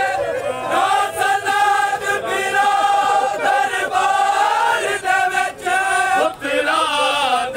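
Men's voices chanting a Shia mourning lament (vain) in long, held, wavering notes, with a crowd of mourners joining in.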